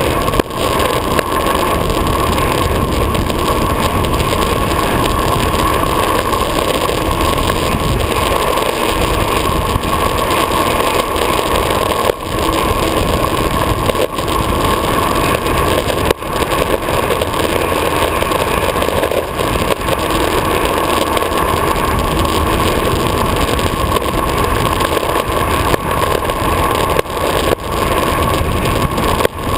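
Longboard wheels rolling fast on asphalt on a downhill run: a steady roar of the wheels on the road mixed with wind on the board-mounted microphone, dipping briefly a few times.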